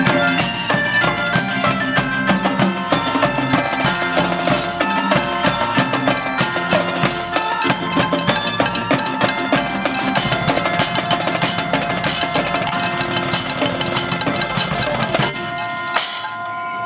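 Marching drumline of snare and bass drums playing a fast, steady rhythm along with music, breaking off near the end with one last hit.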